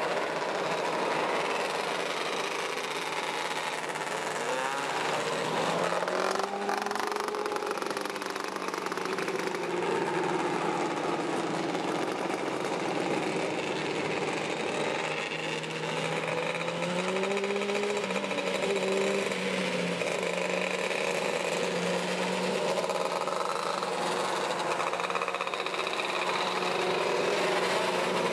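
A pack of 270cc microsprints racing, several engines running hard at once, their pitches rising and falling as the cars pass and go through the turns.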